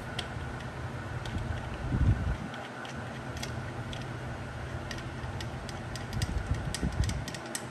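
Scattered light metallic clicks and taps of a socket being worked on a bolt at the supercharger-drive tensioner, coming faster near the end, with a couple of dull knocks, about two seconds in and near the end, over a steady low hum.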